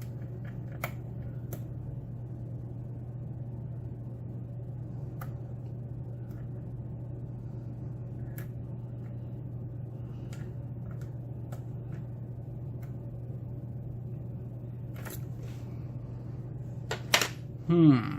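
Faint, scattered clicks of a lock pick working the pins of a pin-tumbler challenge lock held in a deep false set, over a steady low hum. Near the end come a few louder knocks and a brief voice sound.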